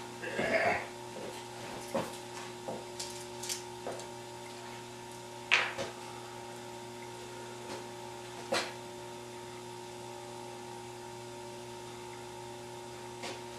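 Steady electrical hum with a dozen or so scattered light clicks and taps of small tools and a container being handled, the loudest about half a second, five and a half and eight and a half seconds in.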